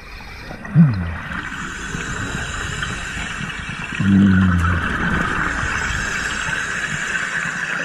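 Underwater sound around a compressor (hookah) diver: a steady hiss of air and bubbles from the diver's breathing. A brief low falling tone comes about a second in, and a short low hum a little after the middle.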